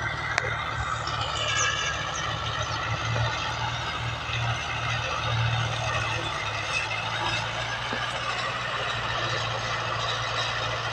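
Kubota tractor's diesel engine running steadily while working a rotary tiller: a low, even drone with a higher whine that wavers in pitch over it.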